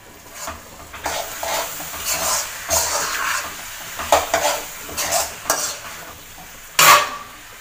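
A spatula stirring and scraping thick chicken masala around a metal kadai in repeated uneven strokes, with a light sizzle from the pan. Near the end there is one sharp clank of the spatula against the pan.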